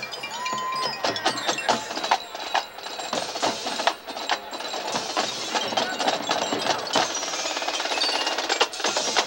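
Band music with drums and percussion, sharp hits several times a second.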